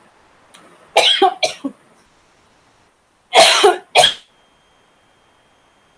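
A woman coughing: a quick run of short coughs about a second in, then two louder coughs around three and a half seconds in.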